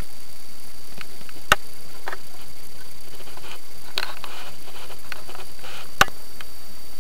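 Pet dumbo rats scrabbling and rustling in soft fleece bedding. Two sharp clicks stand out, one about a second and a half in and one near the end, over a steady hiss.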